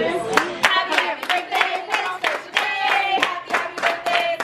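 A group of people clapping in a steady rhythm, about three claps a second, while singing together.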